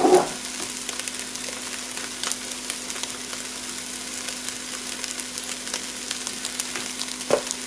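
Ground turkey and green onions sizzling and crackling in a frying pan over a steady low hum, with one short knock about seven seconds in.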